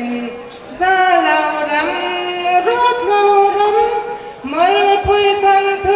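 A woman singing solo into a microphone, holding long, steady notes that step from pitch to pitch. There are short breaks for breath about half a second in and again after about four seconds.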